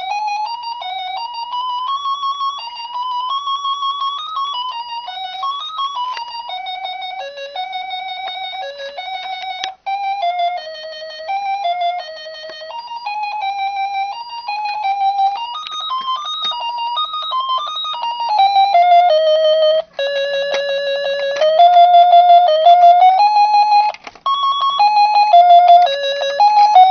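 Tinny electronic melody from a toy's sound chip: single wavering notes with no bass, the tune breaking off and starting again a few times.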